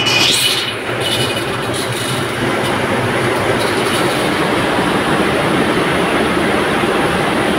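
Screw-making factory machinery running, a steady, dense mechanical clatter with a brief high squeal just after the start.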